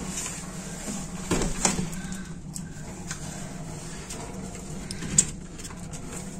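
Scattered sharp clicks and knocks over a steady low hum: a few about a second and a half in, and a louder single click near the end.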